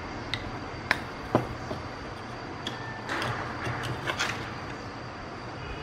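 Light clicks and taps of small tools and parts being handled on a workbench, three sharp ones in the first second and a half, then a short rustling scrape. A steady low hum runs underneath.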